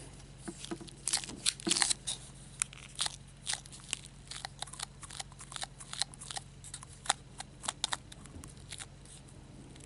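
Thin plastic blister tray crackling and clicking irregularly as fingers press and squeeze a soft squishy toy sitting inside it.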